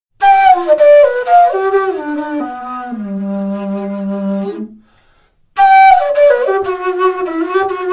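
Mamaquena, a large low-pitched bamboo quena in G with hardwood inserts and a double key, played solo: a phrase stepping down through several notes to a long held low note. After a short pause about five seconds in, a second descending phrase begins.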